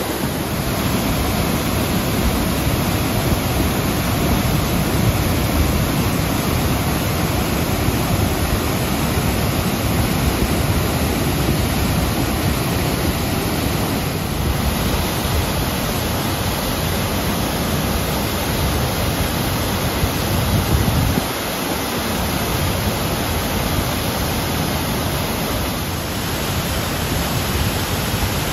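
Kolufossar waterfalls in Kolugljúfur canyon: a loud, steady rush of water pouring over basalt ledges into the gorge, an unbroken roar with no other sound over it.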